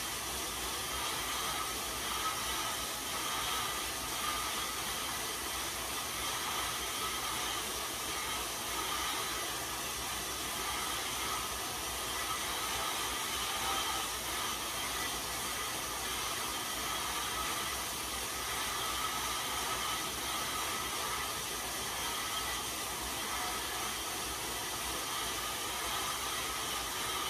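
Road bike tyres spinning on InsideRide rollers under steady pedalling: an even whirring hiss with faint humming tones running through it.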